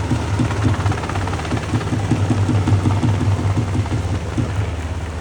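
Army UH-60 Black Hawk helicopter hovering, its main rotor beating at about four to five pulses a second over a steady low hum; the beat fades near the end.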